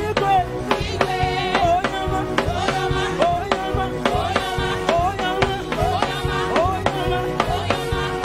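Upbeat live praise-and-worship music: a band with a steady drum beat and a wavering lead melody, with singers on microphones.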